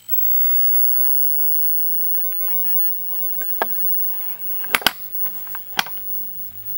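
A few sharp clicks over a quiet background: one a little past halfway, a close pair shortly after, and one more about a second later. A faint low hum comes in near the end.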